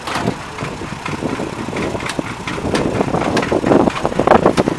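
Engine idling with irregular knocks and clatter, getting louder about three and a half seconds in.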